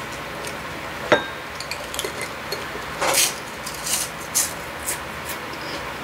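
Close-up eating sounds: a chopstick clinks once against a dish about a second in, ringing briefly, then several short wet chewing and mouth noises follow.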